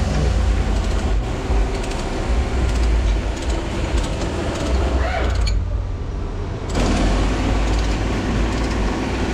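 Steady mechanical workshop noise: a low rumble with a noisy hiss over it. The higher part cuts out for about a second, about five and a half seconds in.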